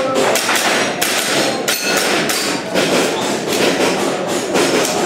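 Airsoft gun firing a rapid, irregular string of shots, several a second, each a sharp crack.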